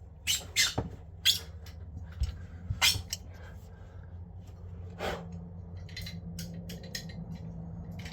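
A series of short clicks, knocks and rustles from tools and plastic pipework being handled under a kitchen sink, the loudest in the first three seconds, with a steady low hum underneath.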